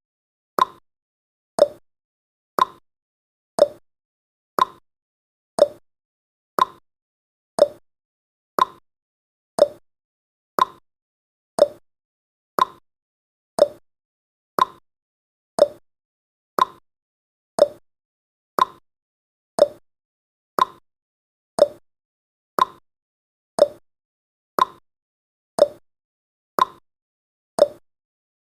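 Countdown timer's ticking sound effect: one short, sharp tick every second, steady and even.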